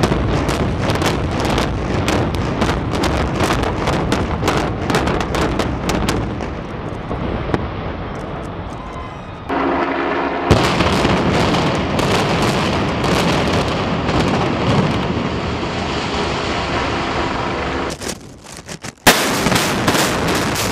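Building implosions by explosive demolition. Each begins with a rapid string of sharp cracks as the charges fire, followed by the long rumble of the structure collapsing. A second implosion starts suddenly about ten seconds in, and a new burst of charges begins near the end.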